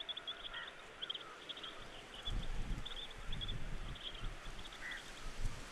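Outdoor ambience of small birds chirping, with rapid high chirps throughout and a few lower call notes. A low wind rumble comes in about two seconds in.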